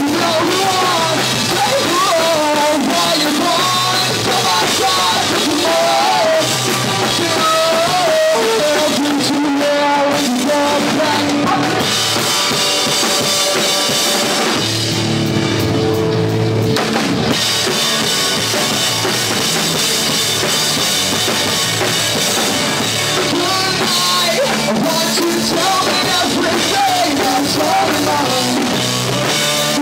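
Live rock band playing loud: drum kit, electric guitars and bass, with a singer. About halfway through, the drums and cymbals briefly drop out under a held chord, then the full band comes back in.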